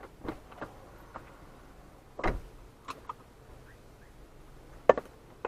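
A handful of short, sharp clicks and knocks inside a parked car's cabin, the loudest about two seconds in and another near the end.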